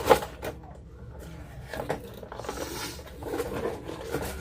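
Plastic toy-set pieces and packaging being handled: a sharp click at the start, then scattered light knocks and rustling.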